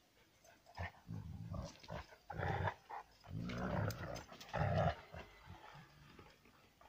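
Two dogs, one of them a Kangal, growling in short rough bouts as they wrestle, about five growls over a few seconds.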